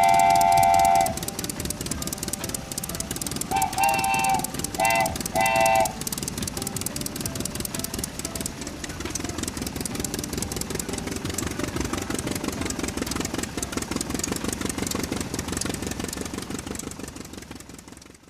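Train horn sounding one long blast, then three short blasts about four to six seconds in, over the fast, steady clatter of a running train that fades out near the end.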